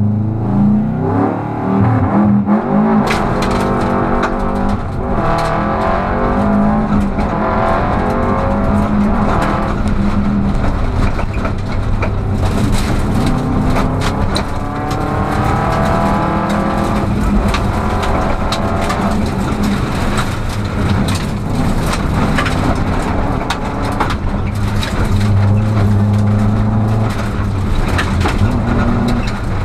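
Rally car heard from inside the cabin, launching from the stage start and accelerating hard along a gravel road. The engine revs rise and fall as it goes up through the gears. From about three seconds in, loose stones crack and clatter against the car's underside.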